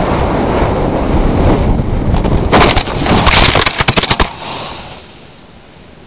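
Heavy wind rushing over the microphone of a paraglider pilot's camera on a fast landing approach. About two and a half seconds in, a quick series of crashes and knocks as the pilot hits the bushes in a crash landing. The wind noise stops shortly after four seconds in.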